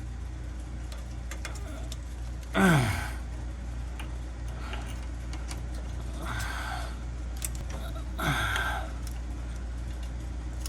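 A man grunting with effort as he works pliers on a plastic wiring clip in a cramped spot, with faint clicks of metal and plastic between the grunts. There are two short grunts that fall in pitch, about two and a half seconds in and near eight seconds, over a steady low hum.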